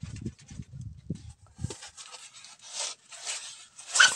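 A foam board waved to fan a wood cooking fire, sending low puffs of air in quick succession through the first two seconds. Then comes a scratchy, hissing rubbing of the foam that grows louder near the end.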